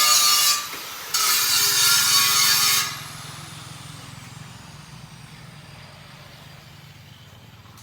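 Power grinder working metal in two loud bursts, about a second apart, then its whine falling away as the disc spins down. A low steady hum continues underneath.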